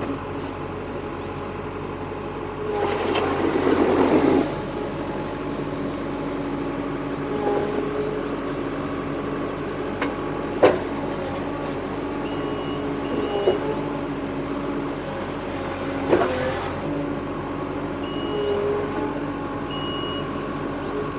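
Construction machine's engine running steadily, with a loud hissing burst about three seconds in, a few sharp clicks, and short high-pitched beeps repeating in the second half.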